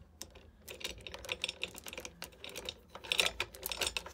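A test piece of 8 mm galvanized calibrated anchor chain clinking as it is worked by hand into the gypsy of a Simpson Lawrence Horizon 1500 windlass, to check that the chain fits. Irregular light metallic clicks, busiest about three seconds in.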